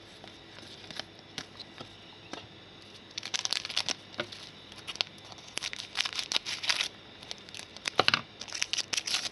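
Foil wrapper of a Donruss Soccer trading-card pack crinkling and tearing as it is opened by hand, in dense crackly bursts from about three seconds in, after a few light taps of cards being handled.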